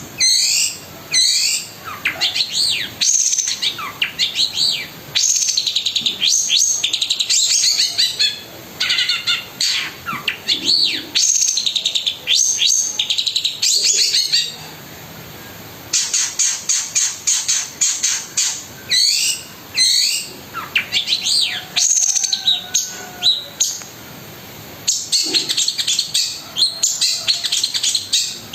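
Long-tailed shrike (cendet) singing loudly in rapid bursts of sharp, high, falling notes and harsh chatter, with brief pauses twice.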